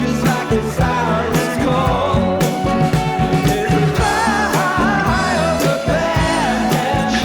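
Background music: a song with a sung vocal over a steady drum beat.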